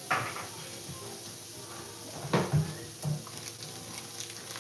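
Kitchen knocks and thumps: one sharp knock right at the start, then a few dull thumps about two and a half to three seconds in. Underneath is a faint steady sizzle from peppers and shallots frying in a pan.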